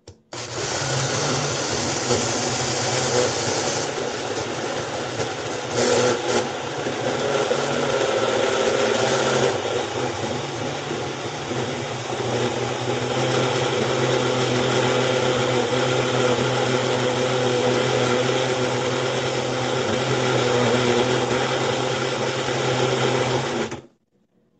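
A small electric motor running steadily with a low hum and hiss, switched on abruptly and cut off just as abruptly after about 24 seconds.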